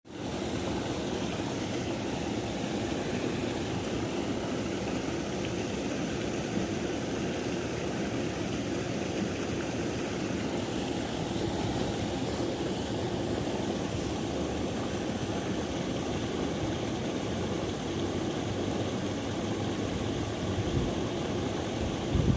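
River water rushing in a steady, unbroken noise, heaviest in the low range.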